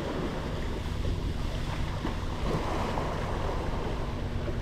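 Small sea waves breaking and washing up on a sandy beach, with wind buffeting the microphone.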